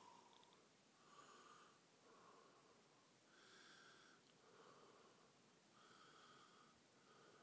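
Near silence with faint breathing close to the microphone, in and out about every two and a half seconds.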